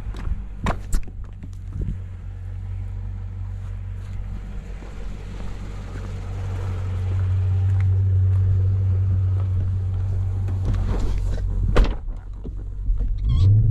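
Low rumble of road traffic, swelling in the middle as a vehicle passes, with a few sharp clicks near the start and near the end.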